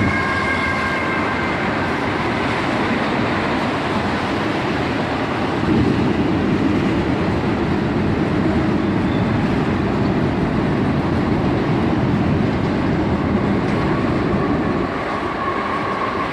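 Train passing close by: a steady rumble of wheels on the rails that grows louder about six seconds in and eases off near the end.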